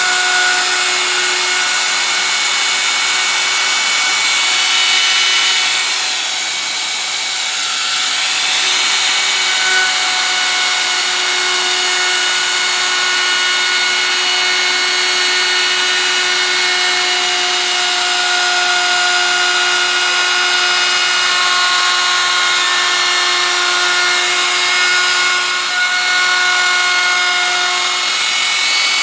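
Electric plunge router running at full speed, its bit cutting a relief pattern into a board: a steady high motor whine mixed with cutting noise. The whine wavers and dips briefly about six seconds in, then runs steady again.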